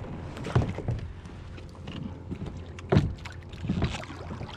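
Kayak paddle strokes in the water: a few irregular splashes and knocks, the loudest about three seconds in, over a steady low rush.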